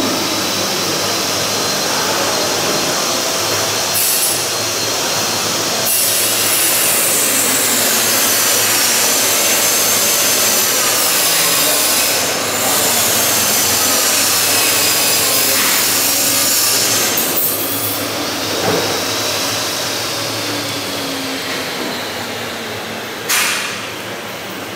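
A power tool running steadily with a wavering high whine, dipping briefly about twelve seconds in and easing off over the last few seconds.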